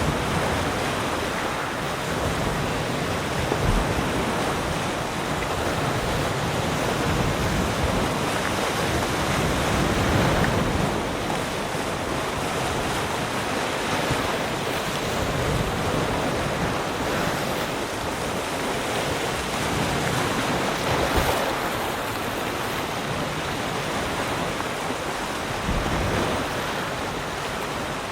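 Ocean waves breaking and washing in continuously, swelling and easing every few seconds.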